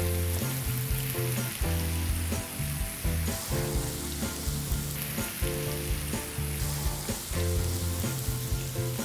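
Marinated fish pieces sizzling steadily as they pan-fry in mustard oil, with a few clicks and scrapes of a spatula turning them in the pan. Low background music plays beneath.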